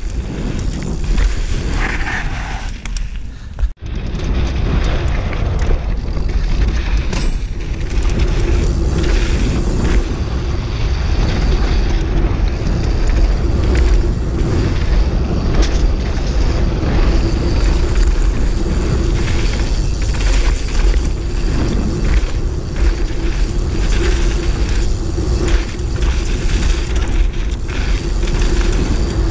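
Wind buffeting an action camera's microphone on a Giant Reign mountain bike, over the steady noise of knobby tyres rolling on a dry dirt trail and the bike rattling over bumps. The sound drops out for a moment a little under four seconds in.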